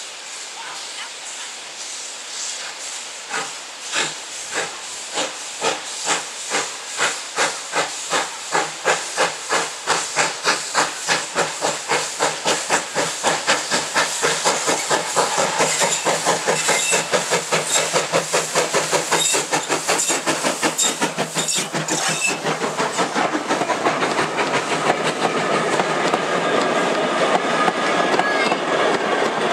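LBSCR E4 0-6-2T steam tank locomotive B473 pulling away under steam: sharp exhaust beats from the chimney, slow at first and quickening and growing louder as it gathers speed, over a hiss of steam. Near the end the beats give way to the steady sound of the coaches rolling past close by.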